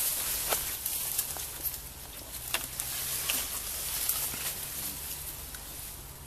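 Rustling of leaves and branches and footsteps as people push through dense undergrowth, with sharp clicks of twigs snapping and stems brushing past, loudest about half a second in and again about two and a half seconds in.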